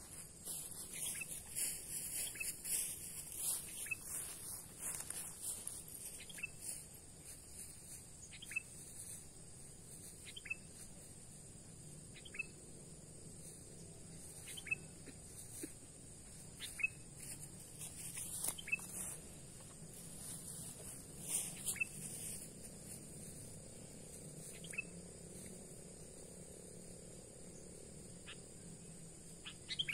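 Short bird chirps repeating about every two seconds over a steady high-pitched insect drone.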